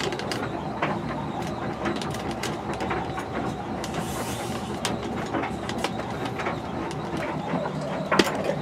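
Tumble dryer running, its drum turning with a steady mechanical whirr; the drum rollers are squeaky, which the owner puts down to them needing lubrication. Short clicks and knocks from the camera being handled are scattered through it.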